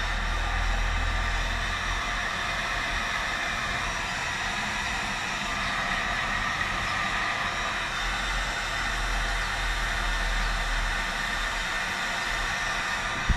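Electric heat gun blowing steadily, a fan whir with airy hiss, as it shrinks adhesive-lined marine heat-shrink tubing onto a crimped lug on a 4-gauge battery cable. A single short click near the end.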